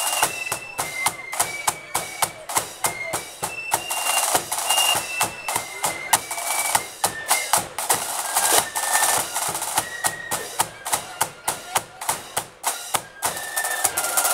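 Flute band playing a tune: the flutes carry the melody over a steady, busy pattern of snare and bass drum strokes.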